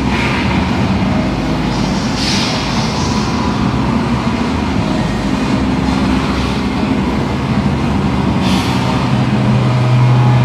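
Loud live electronic noise music: a harsh, dense wash of noise over sustained low droning tones, with hiss swelling up every few seconds and the low drone growing stronger near the end.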